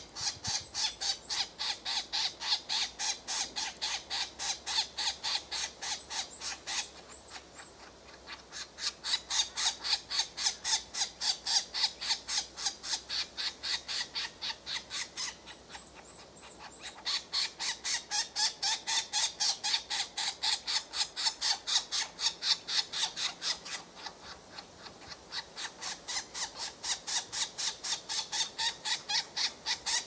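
European green woodpecker nestlings begging for food at the nest hole while the adult feeds them: a fast, rhythmic stream of short harsh calls, about five a second, in long bouts with short lulls between.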